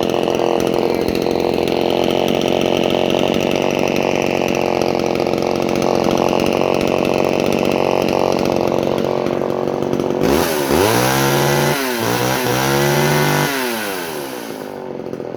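Vintage Homelite Super XL Automatic two-stroke chainsaw idling steadily. About ten seconds in, its throttle is blipped several times, the engine note rising and falling quickly, before it drops back toward idle near the end.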